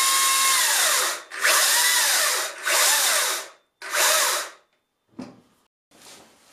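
Makita DUC353 36V cordless chainsaw running with no load, its motor and chain whirring with a steady whine. One run stops about a second in, then three shorter bursts follow, the pitch falling as each winds down when the trigger is released. A couple of faint clicks near the end.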